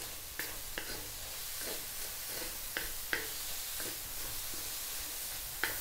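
Stir-frying in a wok: a steady, soft sizzle of chopped onion frying with chicken and carrots, while a wooden spatula scrapes and taps against the pan about twice a second.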